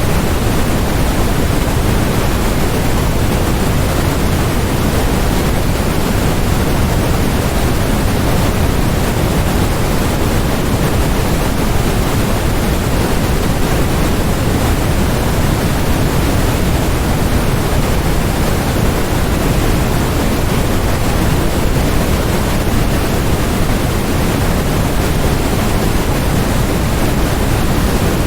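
Steady, unbroken electronically generated white noise, a constant rushing hiss that is fuller in the low end than the top, with no changes or events.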